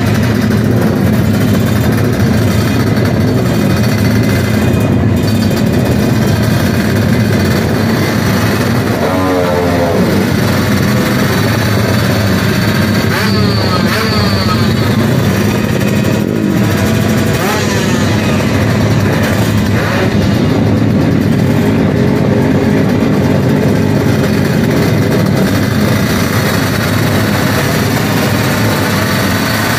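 Drag racing motorcycles running loudly on the start line, a steady engine drone with the pitch gliding up and down a few times near the middle as the throttles are blipped.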